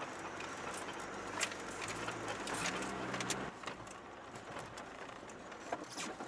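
Land Rover driving slowly through shallow water on a swampy track: a steady wash of water and tyre noise with scattered sharp knocks and splashes, and a low engine note that stands out for a second or so near the middle before it gets quieter.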